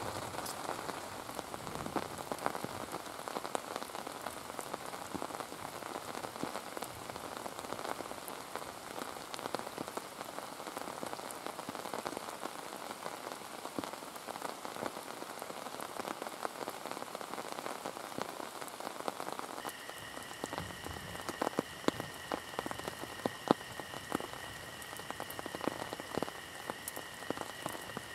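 Steady heavy rain falling, an even hiss dotted with drop ticks. About two-thirds of the way through, a steady high tone on two pitches comes in and stays, and sharper ticks and pops become more frequent.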